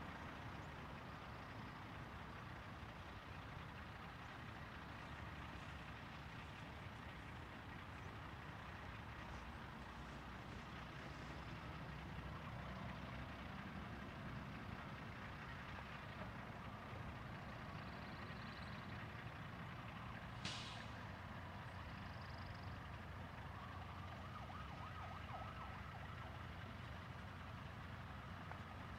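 Faint, steady outdoor background noise with a low rumble. A faint tone slowly rises and falls in the second half, and a brief sharp chirp comes about two-thirds of the way in.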